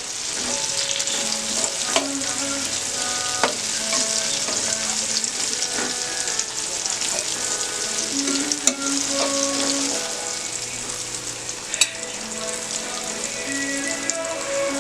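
Pork belly (liempo) sizzling steadily as it fries in hot oil, with a few sharp clicks scattered through.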